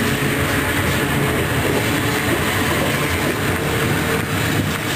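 Amtrak double-deck passenger cars rolling past at close range: a steady rush of wheels on rail, with a few sharp clicks about four seconds in.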